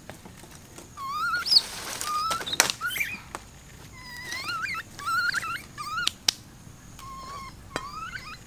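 A puppy whining: many short, high, rising whimpers in clusters, with a couple of sharp knocks among them.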